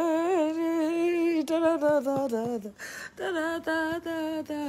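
A woman singing unaccompanied in Vietnamese, drawing out long, wavering notes, with a quick breath about three seconds in.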